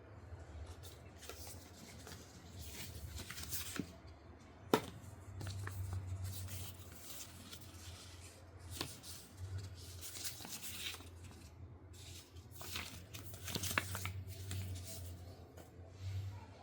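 Rustling and scraping handling noises in repeated swishes, with a few sharp clicks; the loudest click comes about five seconds in. A steady low hum runs underneath.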